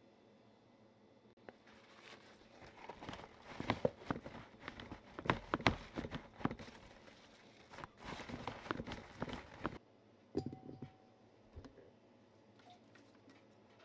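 Paper towel crinkling and rustling under hands pressing it down over sliced white melon to blot off moisture after its salt-water soak. It comes in with many small crackles, pauses briefly about eight seconds in, then cuts off suddenly about ten seconds in, followed by a few faint knocks.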